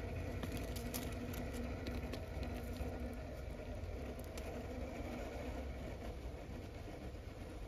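Axial Capra 1/10-scale rock crawler's Hobbywing Fusion SE brushless motor and geared drivetrain running at slow crawl speed, a steady low hum, with scattered small clicks of tyres and chassis on rock.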